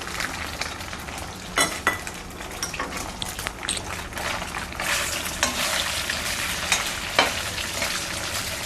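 Chopped boiled goat blood sizzling in hot oil in a kadai as it is stir-fried, with a few sharp scrapes of the stirring utensil against the pan.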